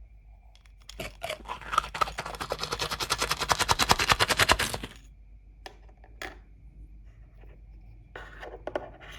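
Small plastic toy parts being worked by hand: a fast, even run of clicking scrapes, about nine a second, lasting about four seconds, then a couple of single clicks and a brief rustle.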